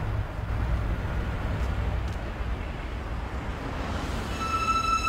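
Steady low rumble of vehicle noise, with a few sustained music tones fading in near the end.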